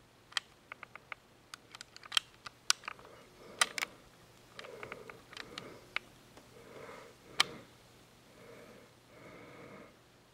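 Handling noise from a handheld camera moving through clutter: scattered sharp clicks and light crackles, the loudest about two, three and a half and seven seconds in, with soft breaths through the nose in between.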